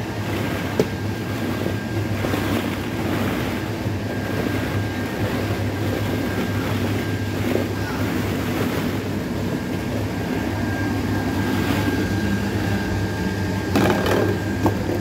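Steady mechanical drone of an indoor playground's air blowers, which push plastic balls through its pipes, with a faint high whine that comes and goes. A few sharp clacks of plastic balls sound about a second in and near the end.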